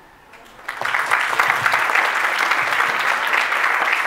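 Audience applauding: the clapping starts under a second in, after a brief hush, and carries on steadily.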